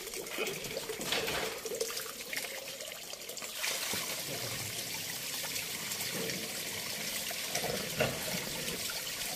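Rumen fluid draining out through a stomach tube passed into a bloated cow's mouth, trickling and splattering steadily onto the wet floor as the impacted rumen is emptied.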